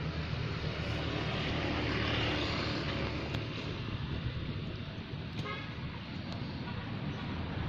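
Steady outdoor rumble and hiss, like distant road traffic, with a brief toot about five and a half seconds in.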